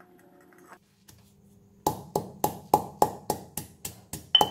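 Granite pestle pounding sliced galangal in a granite mortar: a steady run of dull knocks, about four a second, starting about two seconds in.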